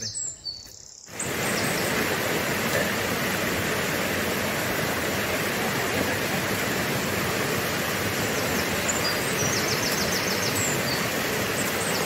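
Shallow, fast mountain stream rushing over rocks: a steady loud rush of water that starts abruptly about a second in. A few bird chirps come over it near the end.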